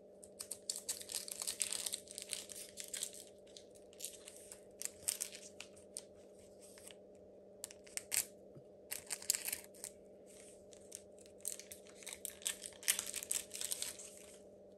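Foil Pokémon booster pack wrapper being torn open and crinkled, in several bouts of crackling with short pauses between, over a faint steady hum.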